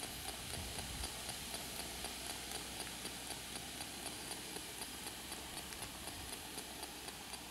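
Spirit Box sweeping through radio stations: steady static hiss broken by regular small ticks, about three a second, as it scans.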